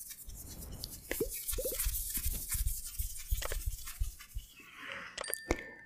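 Close-miked ASMR hand sounds: fingertips rubbing and tapping right at the microphone, a run of crackly scratches and soft taps. A short steady tone sounds near the end.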